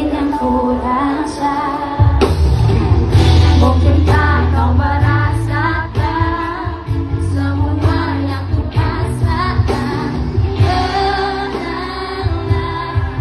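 Indonesian pop song with a female lead vocal over a band; heavy bass and drums come in about two seconds in.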